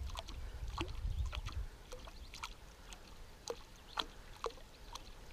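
Small, irregular water splashes and lapping close to a small boat, with a low rumble that fades out a second and a half in.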